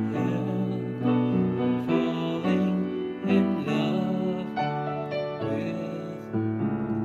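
Yamaha upright piano played as a slow, gentle ballad, chords struck about once a second, with a man singing along.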